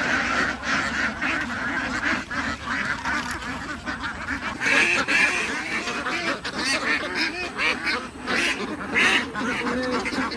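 A large flock of domestic ducks quacking together in a dense, continuous chorus of overlapping calls.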